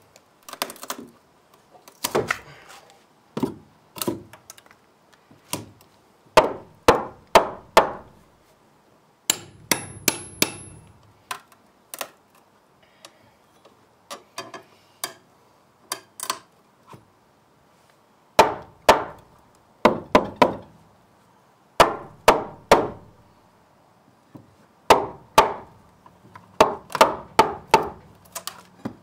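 Hammer blows on a steel pry bar, driving it into old barn wood. The sharp strikes come in quick groups of three to six with short pauses between, some with a bright metallic clink.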